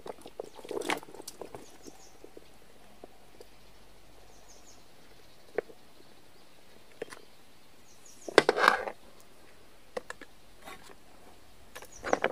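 A plastic food pouch being handled and emptied into a metal pan. The plastic crinkles and rustles in short bursts, with a few light clicks between quiet stretches. The loudest burst comes about eight and a half seconds in.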